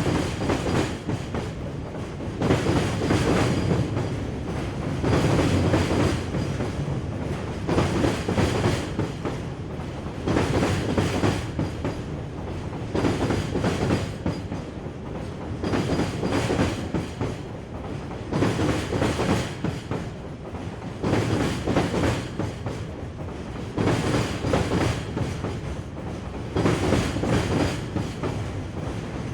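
Train rolling over bridge tracks: a steady rumble of wheels on rail, with a clickety-clack clatter that swells about every two and a half seconds.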